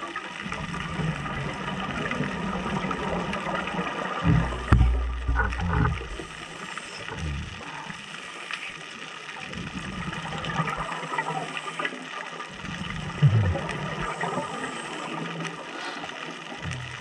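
Scuba divers' exhaled bubbles gurgling and rumbling underwater in bursts several seconds apart, loudest about four to six seconds in and again briefly near thirteen seconds, over a steady underwater hiss.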